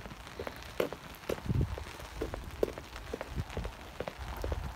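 Rain falling, with scattered light taps of drops. Low thumps of footsteps on wet ground come at a walking pace.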